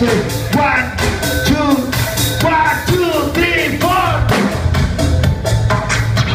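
Live band music: a drum kit keeps a steady beat under a heavy bass, with a sliding pitched line over it for the first four seconds.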